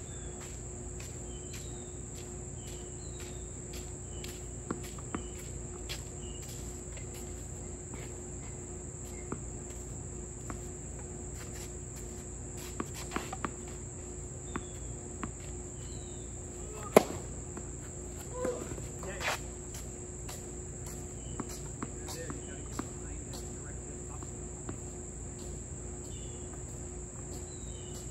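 Steady high-pitched insect chorus with a faint regular pulse, and a few short bird chirps over it. A little before halfway, a tennis ball is bounced a few times; a little past halfway comes one sharp racket strike on the ball, the loudest sound, followed by a couple of fainter hits.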